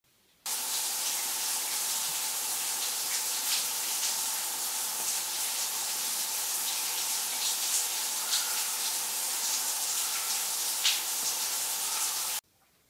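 Steady rush of running water, starting abruptly about half a second in and cutting off suddenly near the end.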